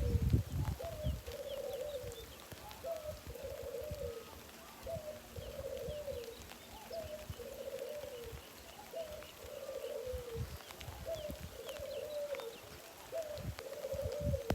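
A dove cooing over and over, one phrase about every second: a short note followed by a longer, lower coo. Faint high chirps sound in the background.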